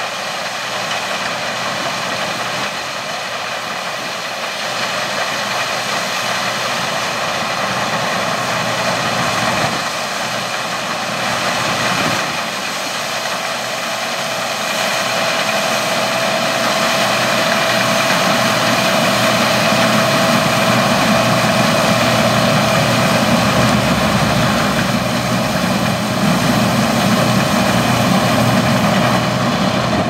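Case IH 2388 Axial-Flow combine harvesting canola: its engine and threshing machinery run steadily under load with constant whining tones, growing louder as it draws nearer.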